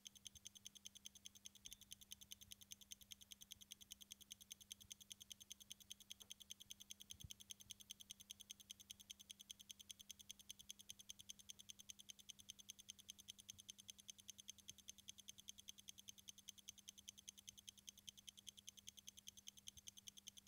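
Near silence: a faint, rapid, perfectly even ticking, several ticks a second, over a steady low hum.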